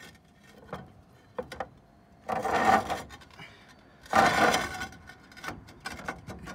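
Roof tiles scraping as they are slid against one another by hand: two loud scrapes about a second and a half apart, with scattered knocks and clicks between.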